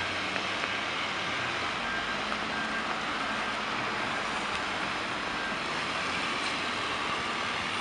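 Ford F-550 fire rescue truck backing up, its engine running steadily under a constant haze of street traffic noise, with faint backup-alarm beeps in the first few seconds.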